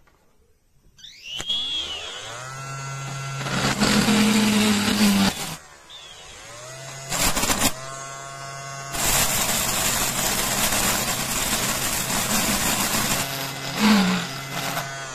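Homemade drill built around a DC 775 motor whining up to speed, then its bit grinding into a painted concrete wall in long bursts. The motor stops once and winds up again between the bursts.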